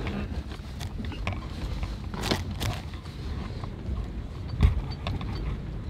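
Four-wheel-drive vehicle driving over rough ground: a steady low rumble with scattered knocks and rattles, and a heavy thump about four and a half seconds in.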